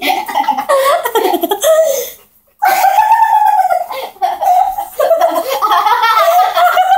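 Young girls laughing loudly in high voices, breaking off briefly about two seconds in.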